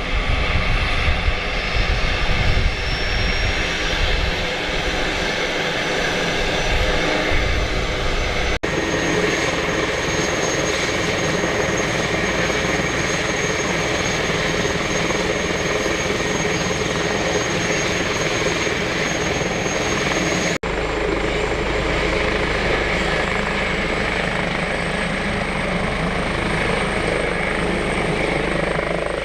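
Airbus H145 police helicopter running with its twin turbines and rotor turning: a loud, steady high turbine whine over the rotor's low rumble, broken by two abrupt cuts. Near the end it lifts off into a low hover.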